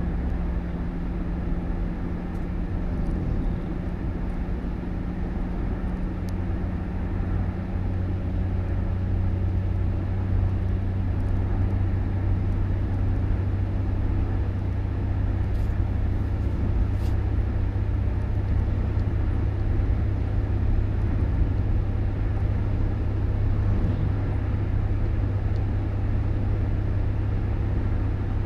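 Steady low rumble of a motor vehicle running, with a faint steady hum in the first part.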